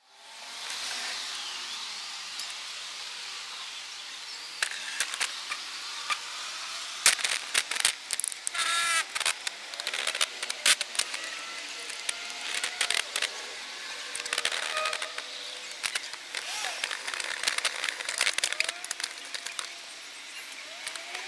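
Outdoor ambient sound played back fast, a steady hiss broken by many sharp clicks and short chirping glides in pitch.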